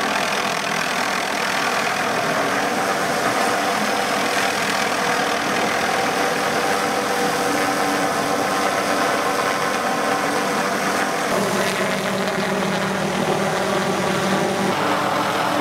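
MD 500 helicopter hovering close by with a tree saw slung beneath it: a steady engine and rotor drone. Its tone mix shifts a little about eleven seconds in.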